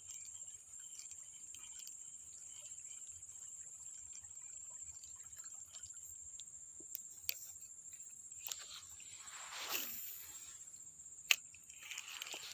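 Crickets trilling steadily in a high, continuous chorus. Near the end there is a brief swish that falls in pitch, with a few sharp clicks around it.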